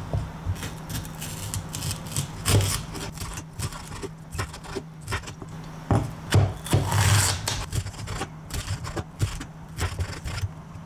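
Kitchen knife slicing bell peppers into strips on a wooden cutting board: irregular taps of the blade against the board as it cuts through the pepper.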